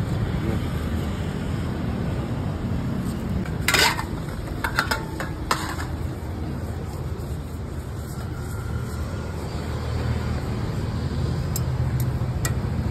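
Stainless steel plates clinking: one sharp clink about four seconds in, then a few lighter clicks, over a steady low rumble of street traffic.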